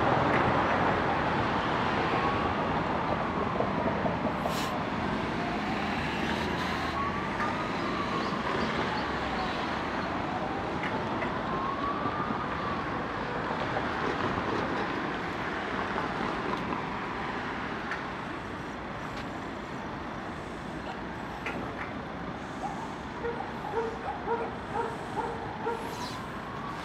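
A distant emergency-vehicle siren wails slowly up and down, one rise and fall about every five seconds, over steady city traffic noise, and fades out after about half the time. Near the end there is a series of short repeated tones.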